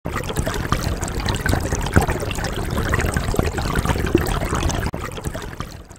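Running water trickling and splashing, a steady stream-like rush full of small irregular clicks, fading out over the last second.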